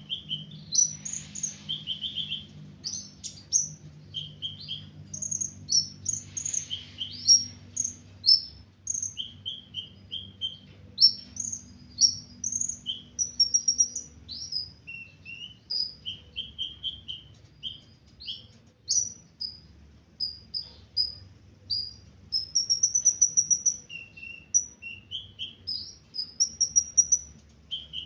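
A sunbird, the bird Indonesian keepers call the 'ninja hummingbird', singing a long, busy song of short, high chirps and twittering notes, with a quick run of rapid notes a little past the middle.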